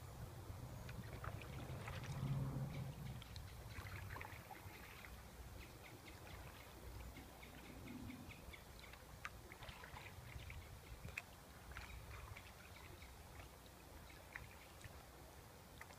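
Faint sounds of a canoe being paddled along a calm creek: water trickling and dripping off the paddle, with scattered small splashes and light knocks.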